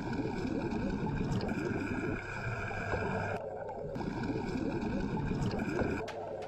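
Underwater bubbling and gurgling over a low rumble, with a steadier hiss that comes and goes every second or two.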